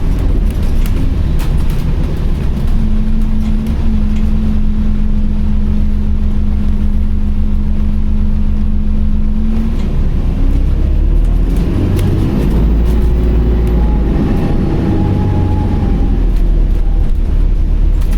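Alexander Dennis Enviro400H City hybrid double-decker bus heard from inside while on the move: a low drivetrain rumble with a steady hum-like whine for several seconds. About ten seconds in the whine drops away and the rumble shifts as the bus changes speed, with higher whines coming and going. The uploader calls it a "Hoover", an unusually odd-sounding example of this hybrid type.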